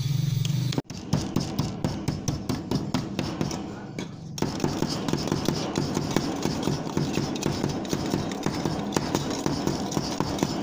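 Claw hammer tapping rapidly on thin sheet metal, bending the cut tabs of a round gutter outlet collar outward against a wooden workbench. The quick metallic taps come several a second and start just under a second in, with a brief pause around four seconds in.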